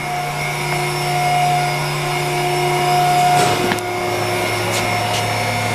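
A 10-foot plate shear's drive motor running with a steady hum and a higher whine. The hum shifts slightly about halfway through, with a few short clicks.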